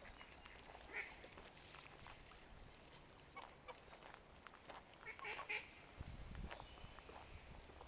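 Domestic goose giving a few short, faint honks, with a louder pair of calls about five seconds in.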